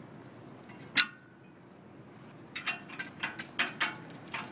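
Steel wrenches clinking against a bolt, nut and Unistrut steel channel as the bolt is tightened down: one sharp clink about a second in, then a run of about eight quicker, irregular clinks in the second half.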